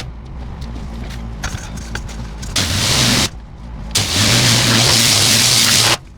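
Pressure washer with a turbo nozzle blasting concrete, its engine running steadily underneath. The spray hiss starts about two and a half seconds in, stops briefly just after three seconds, then runs again from about four seconds until it cuts off near the end.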